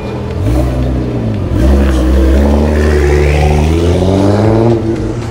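Nissan R35 GT-R's twin-turbo V6 accelerating away, loud, with a drop in engine pitch about one and a half seconds in, like a gear change, and the note climbing again before it eases off near the end.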